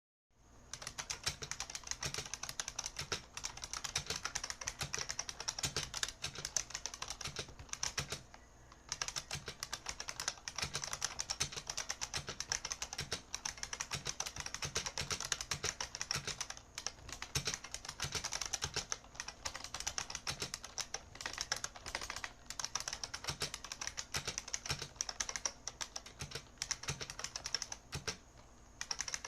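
IBM Model M buckling-spring keyboard being typed on steadily: fast, continuous clacking keystrokes with two short pauses, about eight seconds in and near the end.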